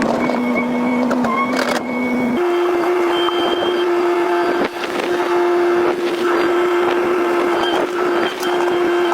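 Excavator's diesel engine running steadily; its pitch steps up and holds from about two seconds in.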